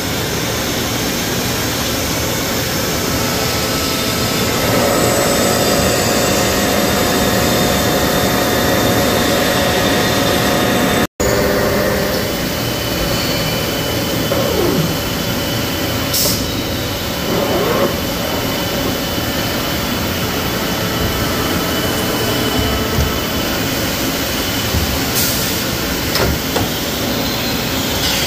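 CNC machining centre cutting a forged front axle I-beam: steady spindle and cutting noise mixed with the hiss of coolant spray, with a few steady tones from the spindle. The sound cuts out for an instant about a third of the way through. Later the spindle pitch slides up and down a couple of times, with a few sharp clicks.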